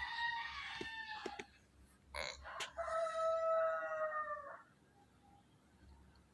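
Dog snoring with high whistling tones: two drawn-out whistles, the second longer and lower, with a short noisy snort between them.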